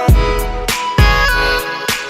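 Background music: an electronic pop track with a steady beat and sustained synth tones.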